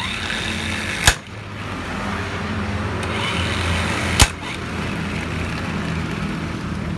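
Two sharp metallic knocks about three seconds apart, over a steady mechanical hum and hiss, during work with hand tools on a scooter's clutch and transmission.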